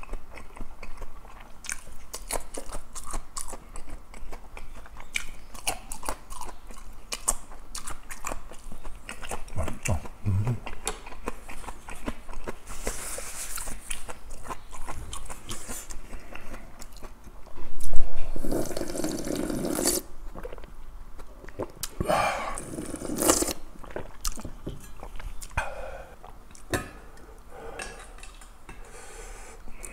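A person eating kalguksu noodles and kimchi: steady chewing and crunching with many wet mouth clicks, broken by a few longer slurps. The loudest slurp starts sharply a little past halfway.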